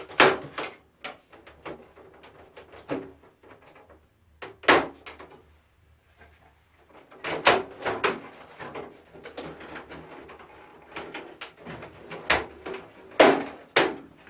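Wall-mounted air conditioner being taken apart: irregular plastic clicks, snaps, knocks and clattering of casing parts being unclipped and handled, with sharper knocks about five, seven and a half, and thirteen seconds in.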